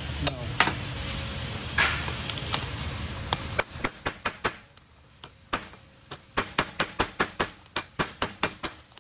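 Hammer blows driving a bearing race into a Toyota 7.5-inch clamshell differential case half: sharp metallic strikes, several a second, seating the race over its shim. For the first three and a half seconds a steady rushing noise runs under a few of the blows, then stops.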